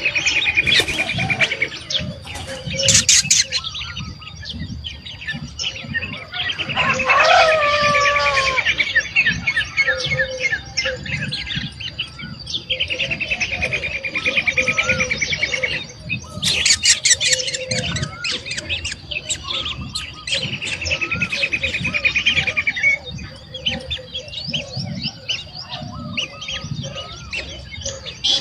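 Birds calling: long rapid trills of two to three seconds, each sliding slowly down in pitch, come four times, with bursts of sharp chirps between them. A faint steady high tone runs underneath.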